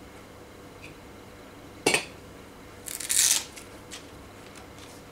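Hands unfastening the retention strap on a black hard-plastic knife sheath: one sharp click about two seconds in, then a brief scraping rustle a second later.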